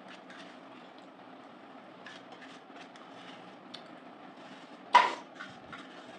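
Spoon scraping and clicking faintly in a small plastic cup of curd during eating, then one sharp metallic clink with a short ringing tone about five seconds in.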